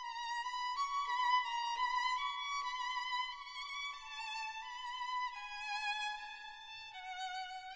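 Background music: a solo violin melody with vibrato, its notes stepping gradually down in pitch.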